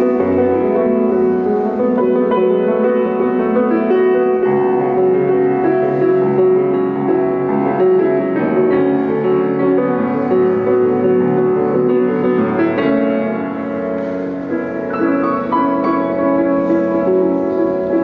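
Solo piano playing a contemporary piece, with sustained notes ringing together in full chords. It grows briefly softer a little past the middle.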